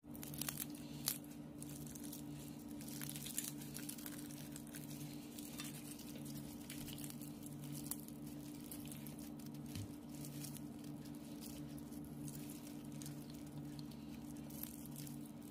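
Crisp batter crust of fried chicken crackling and tearing as the piece is pulled apart by hand, with a few sharper crunches in the first few seconds. A steady low hum runs underneath.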